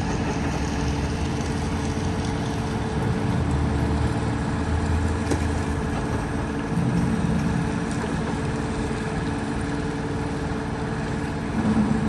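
A concrete boom pump truck's diesel engine running steadily, a low drone that holds the same pitch throughout.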